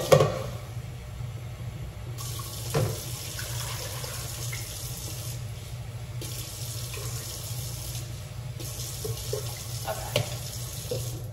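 Kitchen faucet running into a cooking pot to fill it with water for boiling rice. The water runs in two stretches with a short break about halfway. There is a loud knock right at the start and further knocks about three and ten seconds in.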